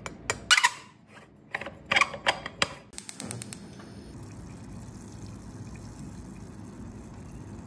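A quick run of sharp metallic clicks and taps on an aluminium moka pot as coffee is spooned into its basket. From about three seconds in, a steady hiss and gurgle of the stovetop moka pot brewing over a gas flame, coffee bubbling up into the upper chamber.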